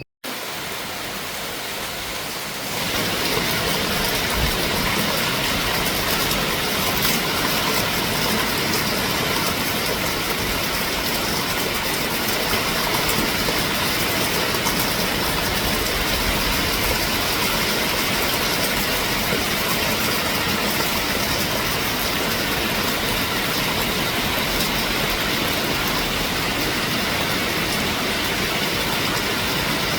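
A steady, even rushing noise with no speech, which grows louder about three seconds in and then holds.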